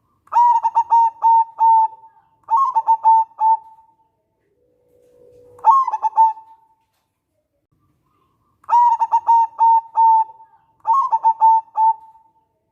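Zebra dove (local perkutut) cooing: rapid, clipped coos in three phrases. The first two phrases are quick stutters, and the third opens with a low held note that jumps up into the coos. The three-phrase sequence is heard twice.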